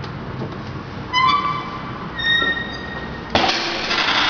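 Experimental noise-performance sounds: a short pitched squeal about a second in, then a thin steady high tone for about a second, then a sudden loud blast of harsh, hissing noise near the end.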